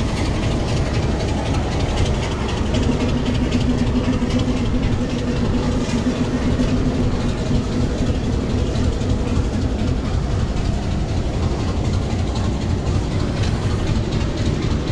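Diesel locomotive idling at a standstill, a steady low engine sound with a held hum that comes in about three seconds in and fades out a few seconds later.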